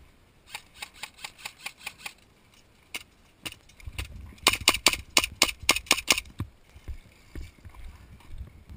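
Gas blowback airsoft pistols firing rapid semi-automatic strings of sharp shots: about eight shots in a second and a half, two single shots, then a louder string of about ten shots.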